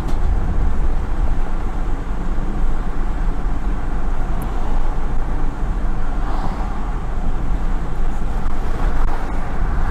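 Road and engine noise of a vehicle driving along, heard from inside the cab: a steady low rumble with no distinct events.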